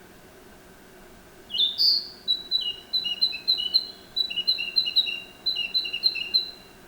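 Narcissus flycatcher singing: after a second and a half of quiet, one song phrase opens with a louder note, then runs on as a quick series of short whistled notes, alternating between a higher and a lower pitch, for about five seconds.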